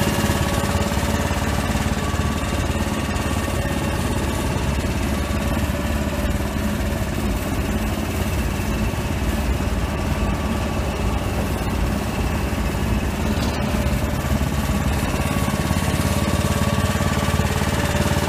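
Dragon asphalt mixer running steadily with its burner firing and its drum rotating: a dense, even machine drone with a few faint held tones. This is the initial heating stage, which brings the asphalt millings in the drum up to about 350–400 degrees.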